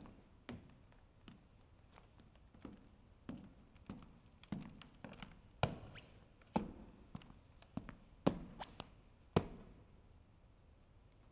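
Footsteps of shoes on a stage floor: scattered, irregular taps and thuds, the sharpest ones in the second half.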